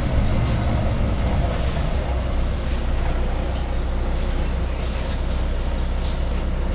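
Volvo B9TL double-decker bus heard from on board, its six-cylinder diesel and running gear giving a steady low hum over road noise as it drives.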